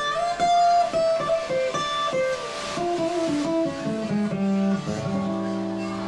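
Acoustic guitar being played solo: a quick run of plucked notes, then notes left to ring near the end.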